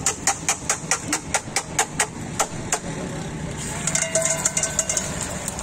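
Metal utensils clattering on a street-food griddle: a run of sharp taps, about four or five a second, that stops about two and a half seconds in, then a quicker, lighter clatter with a brief metallic ring near the end.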